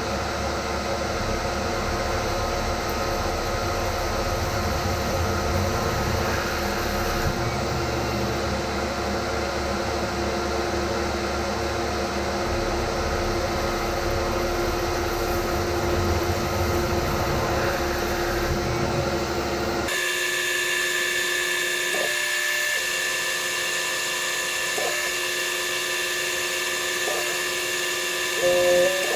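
Tormach CNC mill running: a steady spindle whine over a rumble of machining. About two-thirds of the way through the rumble cuts off abruptly, leaving a higher steady whine with short pitch blips from the machine's motors.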